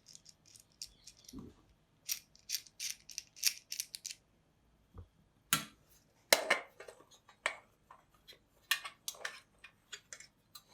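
Irregular sharp clicks and light rattles of small hard parts being handled and fitted together, as a spray paint gun is assembled.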